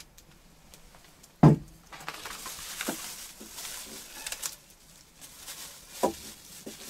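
Objects being handled by hand: one loud thump about a second and a half in, then rustling with light clicks, and another knock near the end.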